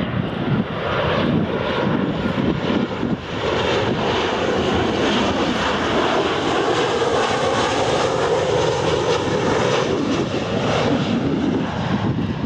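Ryanair Boeing 737-800's CFM56 turbofan engines on final approach, gear down, passing close by. The jet noise swells to its fullest in the middle of the pass and eases off near the end as the aircraft moves away.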